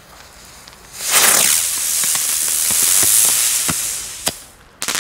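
Funke Feuerfalke fire-bird firework flying up with a loud hiss for about three seconds, with a few single pops. Near the end its crackle effect goes off as a quick burst of many sharp crackles.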